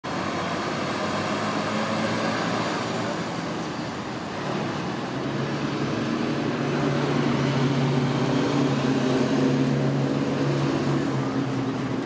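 Steady low hum of a motor vehicle engine from road traffic, growing louder about halfway through, over the rush of shallow water running across a concrete ledge.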